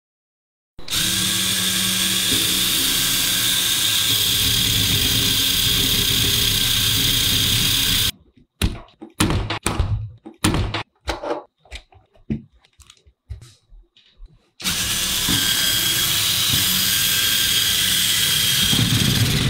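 A Lego car's electric motors and plastic gear trains run with a steady high whine as it drives up a steep glass ramp. The whine stops suddenly after about seven seconds. Several seconds of scattered plastic clicks and knocks follow as the Lego gears and parts are handled, then the motors start again and run steadily.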